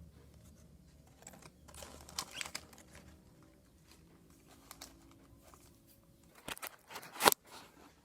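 Packaging being handled during an unboxing: scattered light clicks and crinkling, busiest about two seconds in, and a sharp loud snap near the end.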